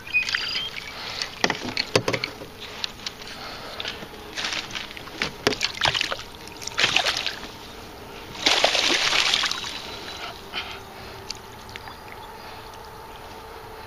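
Gear knocking and clattering in a canoe, a string of short knocks and scrapes with a longer noisy burst about eight and a half seconds in, then quieter near the end.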